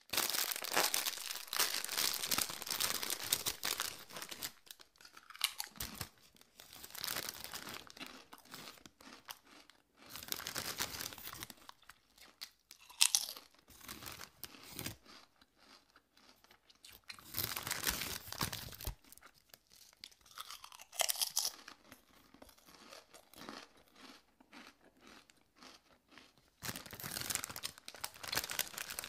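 Someone chewing crunchy food close to the microphone: crisp crunching in bouts of a few seconds, with quieter gaps between them and one sharp louder crunch about halfway through.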